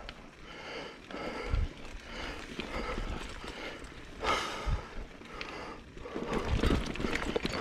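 A mountain biker breathing hard and heavily while pedalling over a rough dirt trail, with a few low bumps from the bike going over the ground.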